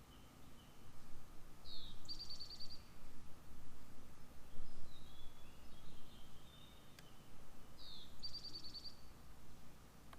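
A songbird sings the same short song twice, each a quick downward slur followed by a fast high trill, with fainter chirps between. A steady low background rumble runs underneath.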